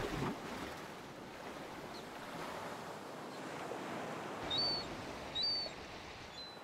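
Ocean surf and wind as a steady wash of noise, with two short high seabird calls about halfway through and a fainter one near the end. A brief falling whoosh at the very start.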